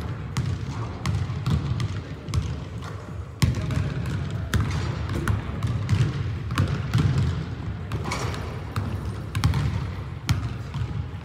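Several basketballs bouncing on a hardwood gym floor, dribbled and bounced at irregular intervals, the bounces overlapping.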